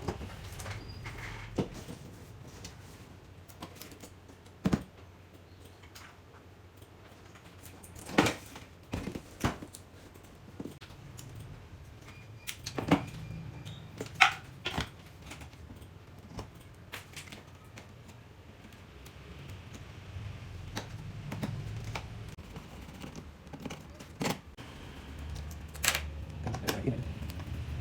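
Scattered clicks and knocks of tools and parts being handled during a TV repair, a few sharper taps standing out, over a low hum.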